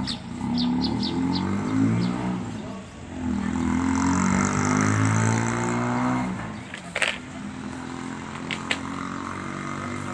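A motor vehicle's engine running nearby, its pitch shifting, louder in the first half, with a sharp click about seven seconds in.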